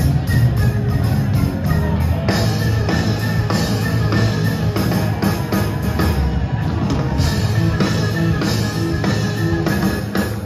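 Live rock band playing loudly: electric guitars and a drum kit keeping a steady beat, heard from the crowd.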